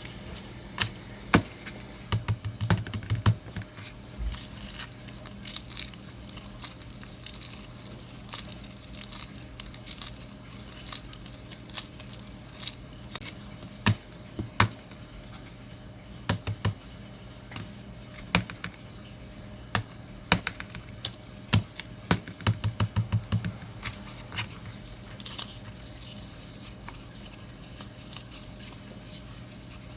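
Irregular light clicks and taps, with two quick flurries of rapid taps, over a faint steady hum.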